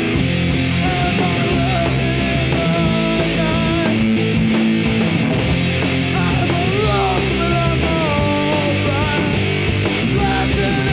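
Loud hard rock music, with a lead melody that slides and bends in pitch over a dense, steady backing.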